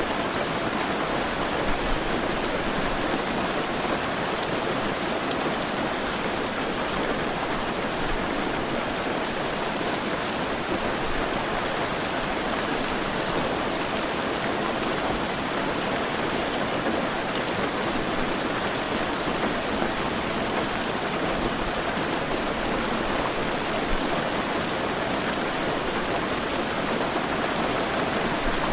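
Heavy rain falling steadily, a dense even hiss of rain on surfaces.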